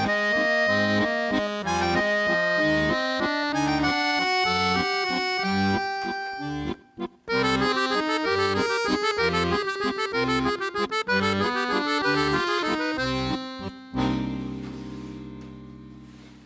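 Accordion playing a tune, with the melody over a regular bass accompaniment and a brief break about seven seconds in. It ends on a held chord that fades away.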